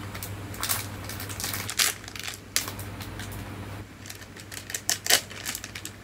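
Thin plastic wrapper of an individually packed layer cake crinkling as it is peeled open by hand, in irregular crackles with a sharper one about five seconds in.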